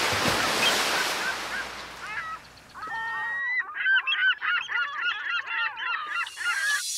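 A flock of birds honking, many short calls overlapping, coming in about two and a half seconds in after a rush of noise fades away.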